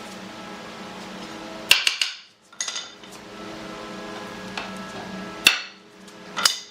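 Hammer blows in a workshop: four sharp knocks with a short metallic ring, in two pairs about a second apart, over a steady low hum.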